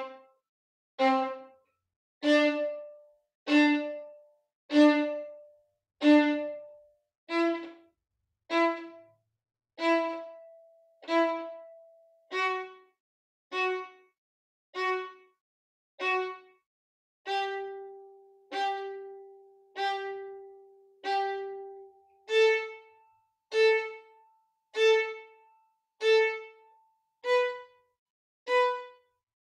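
Solo violin playing a slow staccato exercise: short, separated bowed notes, about one every second and a bit, climbing step by step in pitch. A few notes in the middle are held longer.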